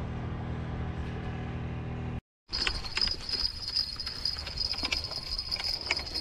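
A steady low hum that cuts off abruptly about two seconds in. It is followed by a spinning reel being cranked to wind in fishing line: a continuous high whirring whine from the reel with rapid light clicks.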